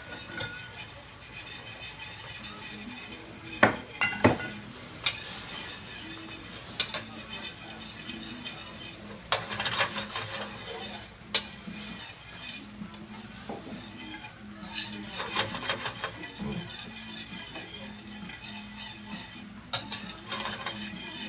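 Metal spoon stirring and scraping in a pan of fruit cooking in a liqueur sauce, with steady sizzling and frequent sharp clinks of metal on the pan.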